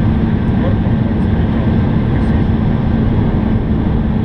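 Steady cabin noise inside an Embraer 170 airliner on approach: the underwing turbofan engines' even drone with a constant low hum, over the rush of air along the fuselage.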